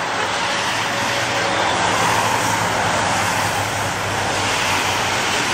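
Race convoy traffic, team cars and motorcycles, passing on a rain-soaked road: a steady hiss of tyres on wet asphalt over a low engine hum.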